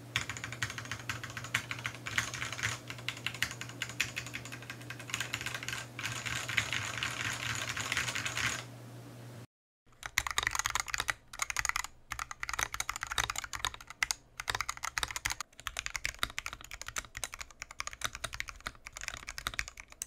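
Fast typing on a wooden TADA68 keyboard with Gateron Ink Black linear switches in a steel plate: a dense run of key clacks. The lubed switches are heard first; after a moment's break about halfway through, the same typing continues on unlubed switches for comparison.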